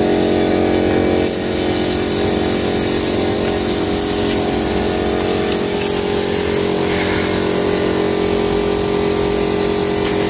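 Gravity-feed paint spray gun hissing as it sprays, with a short break a little over three seconds in, over the steady hum of the air compressor that feeds it.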